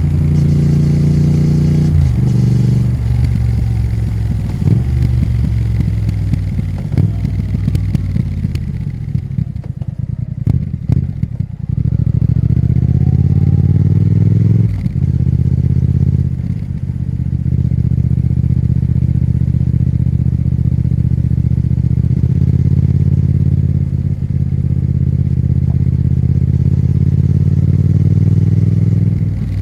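Triumph Thruxton RS 1200 cc parallel-twin engine and exhaust under way. The engine note steps through gear changes, sags with clicks and crackle as the revs drop around the middle, picks up again, then holds a steady cruising note for the last ten seconds or so.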